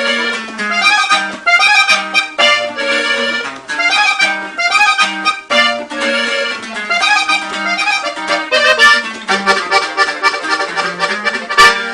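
Instrumental break of a corrido: an accordion plays quick melodic runs over a bass line, with one sharp hit near the end.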